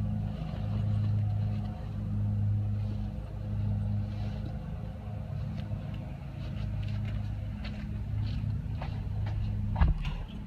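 A steady low machine hum, swelling and easing slowly, with faint rustles and a single sharp thump near the end.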